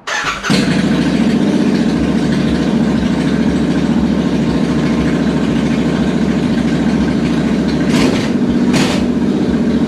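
Royal Enfield INT650's 648 cc parallel-twin engine starting up about half a second in, then idling loudly with no exhaust fitted, open headers only. Two brief louder noisy bursts come near the end, about a second apart.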